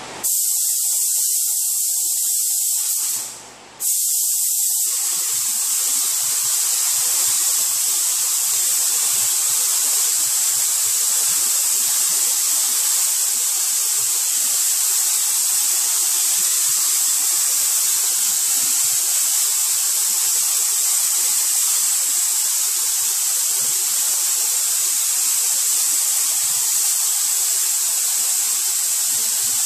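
Gravity-feed air spray gun hissing steadily as it lays clear coat onto a car hood; the air cuts off for about a second around three seconds in as the trigger is let go, then starts again.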